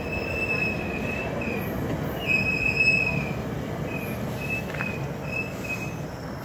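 VIA Rail passenger cars (stainless HEP and LRC cars) rolling past on steel wheels, with a steady rumble. Over it a high-pitched wheel squeal comes and goes, loudest about two to three seconds in.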